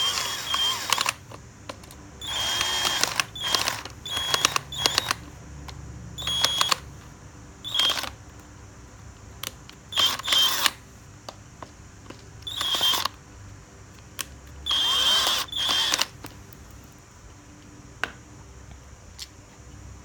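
A cordless drill-driver driving screws in a series of short bursts, about a dozen in all, each half a second to a second long with a high motor whine, as a battery pack casing is screwed back together.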